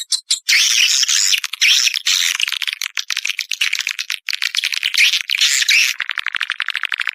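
Swiftlet lure-call recording played back: dense, high-pitched twittering and chirping of swiftlets, with a fast buzzing trill about six seconds in.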